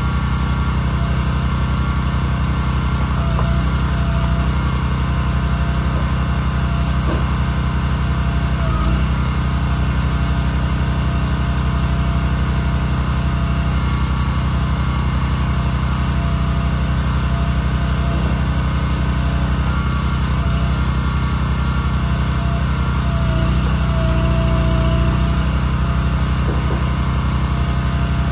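Small gasoline engine of a Wolfe Ridge firewood splitter running steadily while the splitter is worked.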